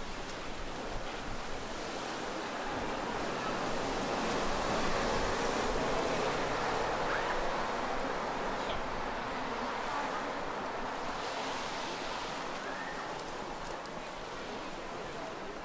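Sea waves washing onto the shore, a broad rushing noise that swells a few seconds in and then slowly dies away.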